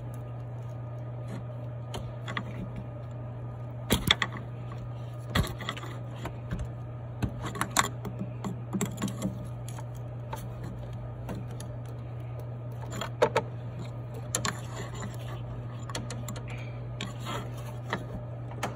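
Irregular metal clinks and knocks as a pry bar levers the rusty lower U-joint of a Silverado intermediate steering shaft off the steering gear. A steady low hum sits underneath.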